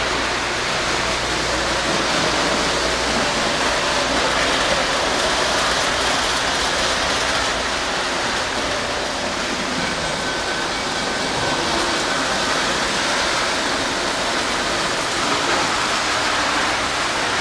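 O gauge model trains running on the layout's three-rail metal track: a steady, even running noise of wheels and motors on rail, with a faint high whine for a couple of seconds just past the middle.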